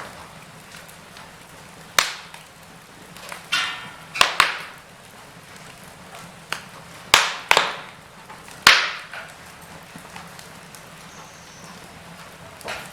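Wood fire crackling in a fireplace: irregular sharp pops and snaps over a faint steady hiss, with a quick run of small crackles about three and a half seconds in and the loudest pops a little past seven seconds and near nine seconds.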